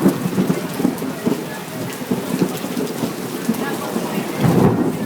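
Heavy rain coming down in a thunderstorm, many drops pattering close by, growing louder for a moment near the end.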